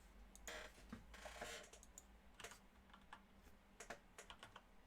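Faint typing on a computer keyboard: irregular clicks of keystrokes.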